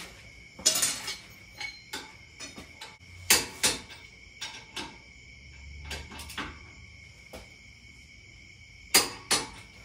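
Metal tools and parts clinking and knocking at a truck's front wheel hub, a dozen or so sharp irregular clinks with a short ring, as a socket wrench is worked on the brake caliper bracket bolts.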